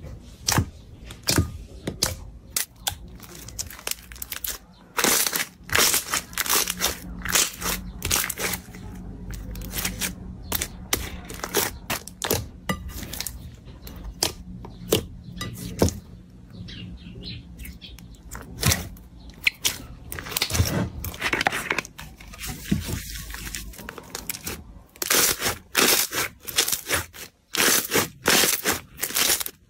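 Slime being squeezed, pressed and pulled by hand, making rapid clicks, crackles and crunches that come thicker near the end.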